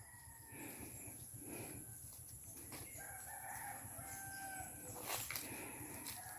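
Rooster crowing faintly in the distance, one drawn-out call about three seconds in, with a soft click about five seconds in.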